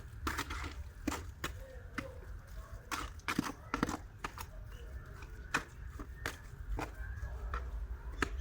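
A series of irregular sharp knocks and clicks, a dozen or so at uneven spacing, over a steady low rumble.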